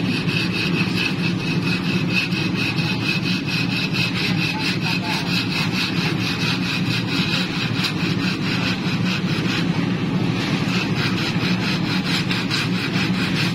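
Aluminium screed bar being worked back and forth across wet concrete in a sawing motion to level the pour, making a fast, even scraping rhythm. An engine runs steadily underneath.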